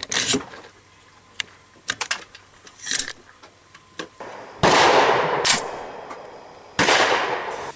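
Rifle action being worked by hand: a series of clicks from the safety lever and bolt, then two loud sharp impacts, each trailing off over a second or two.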